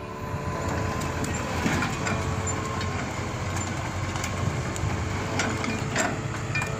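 Hitachi EX200 excavator running, its diesel engine giving a steady mechanical noise, with a few sharp knocks and clanks.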